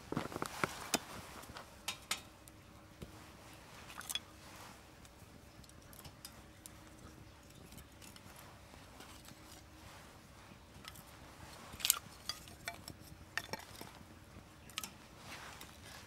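Scattered light clicks and clinks of small hard objects being handled, a few close together near the start and again late on, over a faint steady hum.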